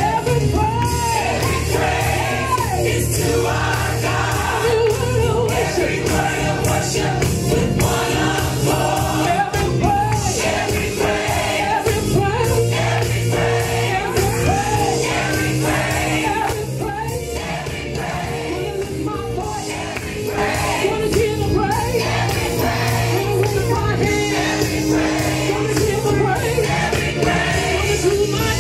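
Gospel music: sung melody with choir voices over instrumental backing and a steady beat.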